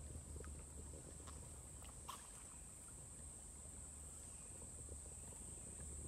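Rainforest insects buzzing in one steady, high-pitched drone, with a low rumble underneath and a few faint clicks in the first two seconds.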